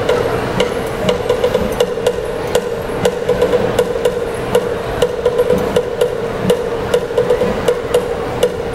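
Live traditional percussion accompanying the Binanog dance: quick, sharp strikes in a steady repeating rhythm over a continuous ringing tone.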